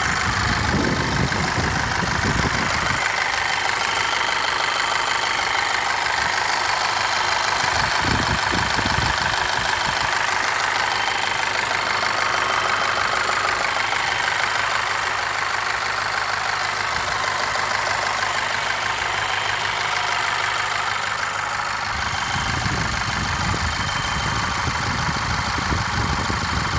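VW Scirocco's 2.0 TSI EA888 turbocharged four-cylinder engine idling warm, with a strange knock that is still present despite a new timing chain and a modified chain tensioner.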